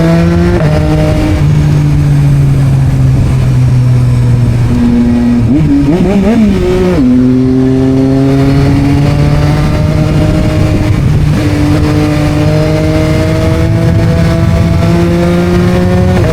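Yamaha MT-09's three-cylinder engine through an Akrapovic exhaust, under way and rising slowly in pitch with drops at the gear changes, and a quick blip of revs up and down about six seconds in.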